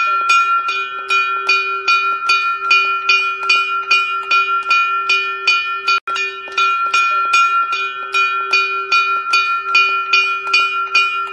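Small hanging metal bell rung rapidly by hand, struck about four times a second, with its ringing tone carrying on between strikes. The sound cuts out for an instant about six seconds in.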